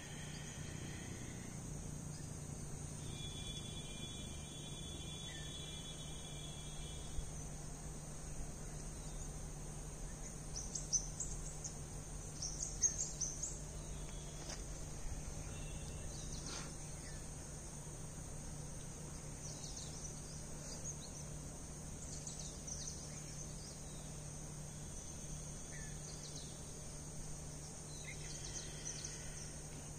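Outdoor ambience of insects (crickets or cicadas) keeping up a steady high drone, with scattered short bird chirps and a low steady hum underneath. A brief buzzing trill sounds a few seconds in.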